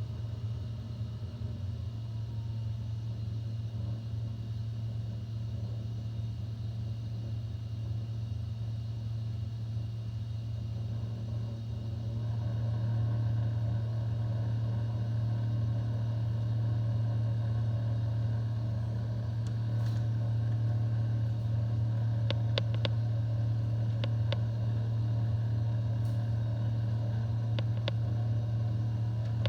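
Hitachi R-WB 552 PU2 refrigerator with its door closed giving a loud, steady low hum with a rattling buzz in it, a fault hum that shows no error code. The hum grows louder about twelve seconds in, and a few faint clicks come in the second half.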